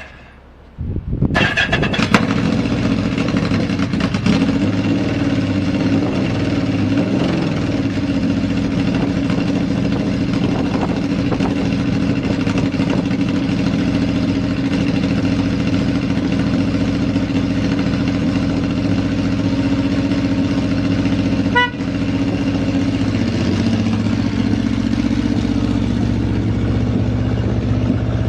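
Yamaha XS750 Special's three-cylinder four-stroke engine starting about a second in, then running at a steady idle without abnormal noises.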